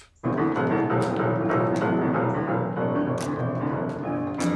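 Upright piano hammered by a young child, many keys struck together in a loud jumble of notes that starts suddenly just after the beginning.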